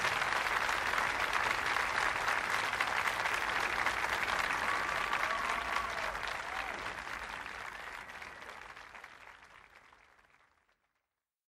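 Crowd applauding, the dense clapping fading out steadily over the second half.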